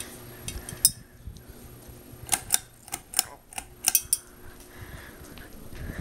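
Sharp clinks and clicks, about nine, most of them bunched in the middle, as the glass light globe and brass fitter of a Hampton Bay Genoa ceiling fan are handled. The fan motor's low hum runs underneath.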